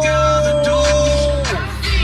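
Pop song playing with a voice holding one long sung note that slides down about a second and a half in.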